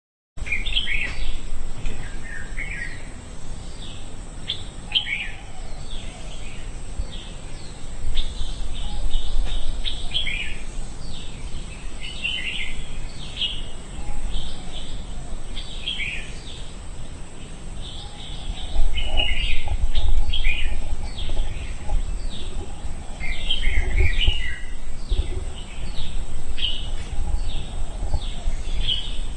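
Small birds chirping in many short, repeated calls, with a low rumble underneath.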